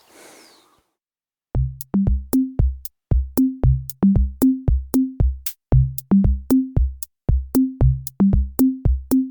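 Outro music: a drum-machine beat with short bass notes, about three hits a second, starting about a second and a half in.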